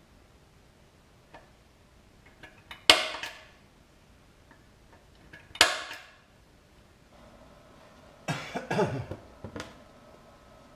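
Two sharp knocks a few seconds apart, each ringing briefly, then a faint steady hum starts and a short run of clattering knocks follows: wood and tools being handled at a workbench.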